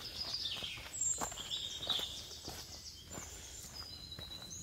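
Footsteps on a dirt forest trail, about one and a half steps a second at walking pace, with several songbirds calling, including a falling note at the start and a rapid series of high repeated notes in the middle.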